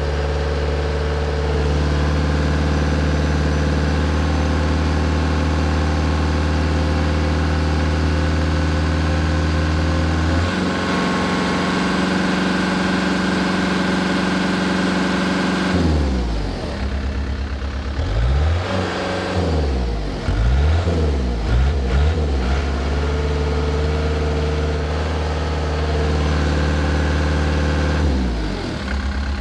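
Cat 277B's diesel engine running steadily, its speed changed by hand at the injection pump's lever. About halfway through, the engine speed swings down and back up several times, then settles and drops again near the end. The owner suspects the freshly rebuilt injection pump is uncalibrated and one cylinder is weaker than the others.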